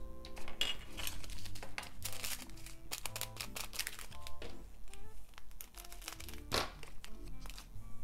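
Resin diamond-painting drills rattling and clicking against a plastic drill tray and a small clear plastic storage container, with a plastic bag crinkling, over soft background music.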